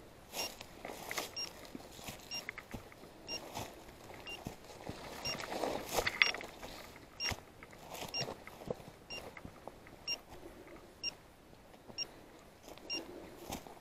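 Footsteps and brush rustling and snapping as a hunter pushes through dry scrub, loudest about six seconds in. Under it a faint high electronic beep repeats evenly about every three-quarters of a second, typical of a hunting dog's beeper collar.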